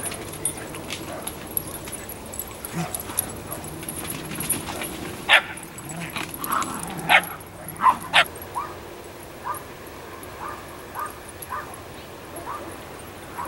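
Several dogs barking and yipping in play, with a cluster of sharp, loud barks in the middle followed by a run of short, higher yips near the end.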